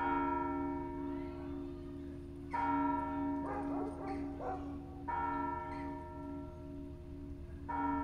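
Russian Orthodox church bells ringing. A large bell is struck four times about two and a half seconds apart, each stroke ringing on. A lower bell tone pulses about twice a second beneath it, and smaller bells are struck in quick clusters in between.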